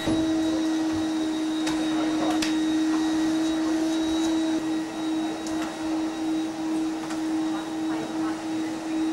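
Canister vacuum cleaner running with a steady motor whine as it is worked over carpet, its loudness swelling and dipping a little from about halfway; a couple of faint knocks about two seconds in.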